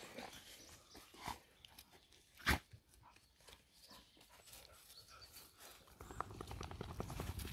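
Footsteps and scuffling of walkers and a dog on the move: a few sharp knocks, the loudest about two and a half seconds in, then a quick rattling shuffle near the end.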